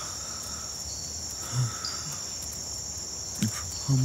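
A steady, high-pitched chorus of crickets, with a few short, low vocal sounds from a man near the middle and the end.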